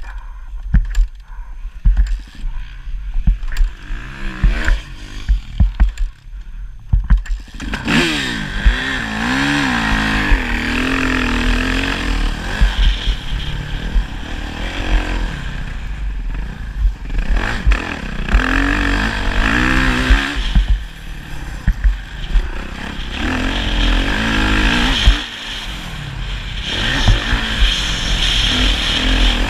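Motocross motorcycle engine, at first mostly drowned by low rumble and a run of sharp knocks, then from about eight seconds in clearly heard, its note rising and falling repeatedly as the throttle is opened and shut.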